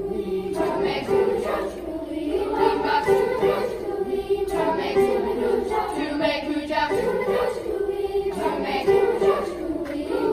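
Children's choir singing a Swahili song, many voices together holding sustained notes.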